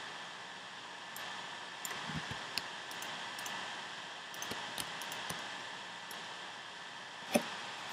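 Scattered light clicks of a computer mouse and keyboard over a steady hiss, with one sharper click near the end.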